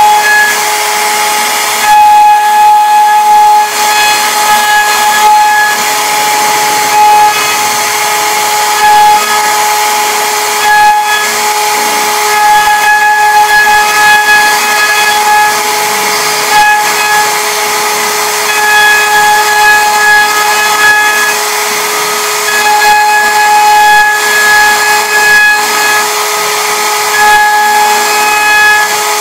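CNC router spindle whining at a steady pitch with a hiss of cutting as its small bit carves a relief into a wooden door panel. A higher tone swells and fades every few seconds.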